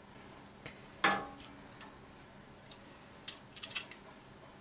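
Metal kitchen tongs clicking and tapping against a glass baking dish as onion rings are placed on the fish. There are a few light clicks, one louder clink with a brief ring about a second in, and a quick run of clicks near the end.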